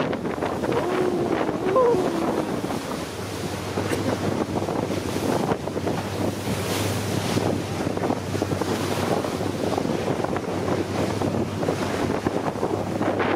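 Wind buffeting the microphone and rushing water aboard a running speedboat, with a steady low engine hum coming in about three seconds in.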